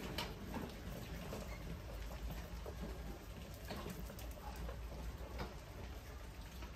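A crowd of mice scrabbling over glass and wire mesh: scattered small scratches and taps over a steady low hum.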